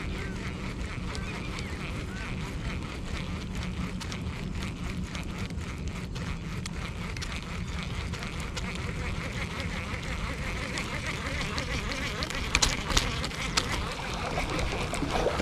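Baitcasting reel being wound steadily during a frog-lure retrieve, a fine buzzing whirr over outdoor background noise, with a few sharper clicks about three-quarters of the way in.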